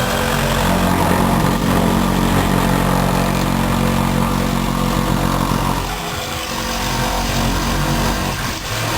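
An engine running steadily, its level and pitch dipping briefly about six seconds in and again near the end.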